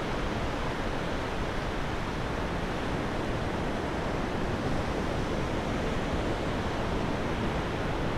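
Sea surf breaking offshore and washing up a shallow sandy beach: a steady rushing noise.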